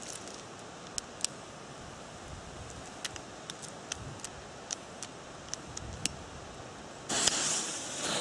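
Steady background hiss with scattered small sharp clicks, then a sudden burst of rustling noise about seven seconds in that lasts about a second.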